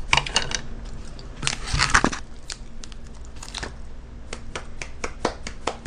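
Crinkling and rustling of plastic takeout food packaging being handled, in two bursts in the first two seconds, followed by a run of light clicks and taps.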